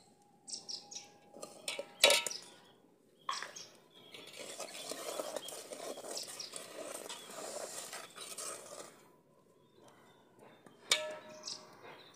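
A steel ladle stirring milk and rice in a brass pot, scraping steadily around the pot for several seconds, with a few clinks before and one sharp metallic clink that rings briefly near the end.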